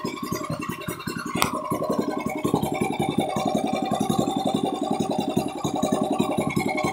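Yamma 18 hp, 460 cc single-cylinder gasoline engine running steadily with an even, fast firing beat. There is a sharp click about a second and a half in, and after it the engine runs a little louder and steadier.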